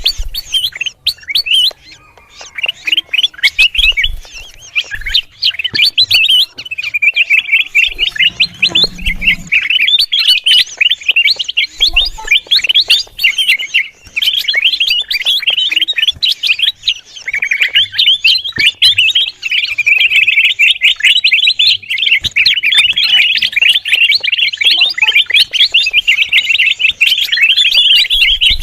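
Kutilang emas bulbul calling noisily: quick chirping notes in a near-unbroken stream.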